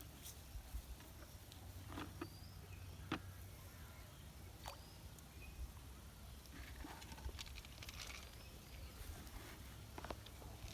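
Faint rustling and scattered light clicks over a low steady rumble.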